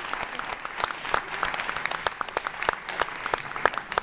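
Live audience applauding: many hands clapping in a dense, steady stream.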